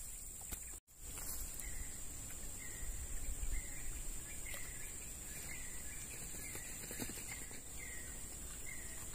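Outdoor wildlife ambience: a steady high-pitched insect buzz, with a short chirp repeated about once a second. The sound drops out for an instant about a second in.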